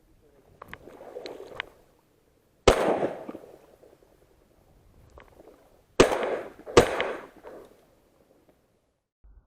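Three shotgun shots: one, then about three seconds later two more in quick succession, under a second apart, each trailing off in an echo. A softer stretch of rustling with a few clicks comes before the first shot.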